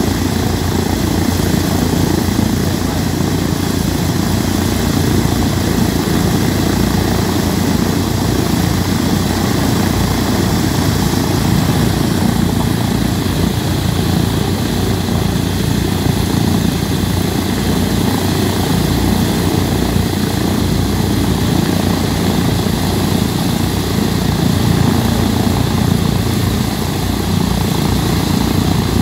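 Boeing B-17G Flying Fortress's Wright R-1820 Cyclone nine-cylinder radial engines idling steadily, a loud, low propeller drone that holds even with no revving.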